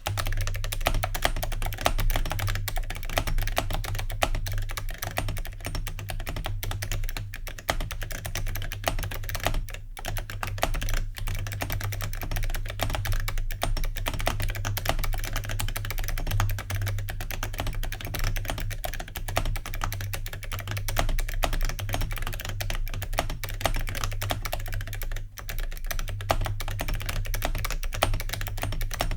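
Continuous fast typing on an 8BitDo keyboard with ZealPC clicky switches and metal keycaps (suspected zamak): a dense, loud, clicky run of keystrokes.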